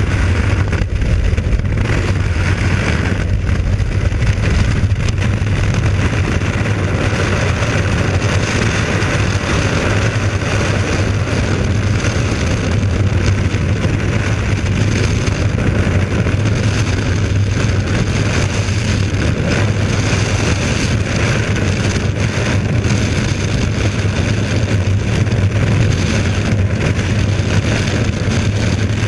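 Freefall wind rushing over a body-worn camera's microphone: a loud, steady deep rumble with hiss above it.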